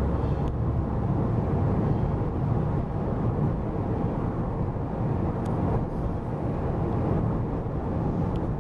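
Steady low road and engine noise of a car driving at speed, heard from inside the car.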